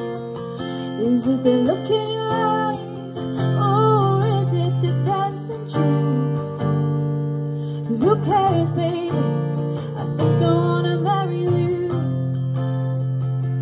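A woman singing into a microphone, with a strummed acoustic guitar accompanying her. She sings in phrases, with a short pause about halfway through while the guitar chords ring on.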